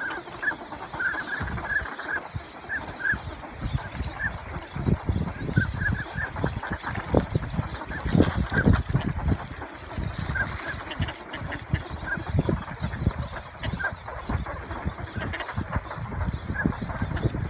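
A flock of dabbling ducks, mostly northern pintails, calling with many short, high notes scattered irregularly, over a steady low rumble.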